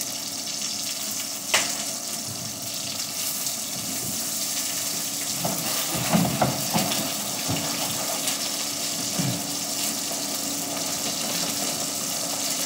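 Chicken breast sizzling in oil in a frying pan, a steady hiss over a faint low hum, with a sharp click about a second and a half in and a few light knocks around the middle.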